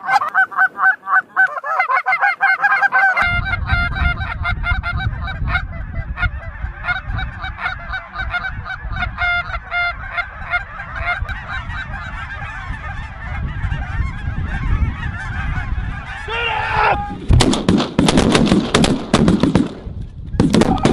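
A goose call blown, then a large flock of snow geese honking overhead in a dense, continuous chorus over low wind rumble. About seventeen seconds in, a rapid volley of many shotgun blasts from several hunters.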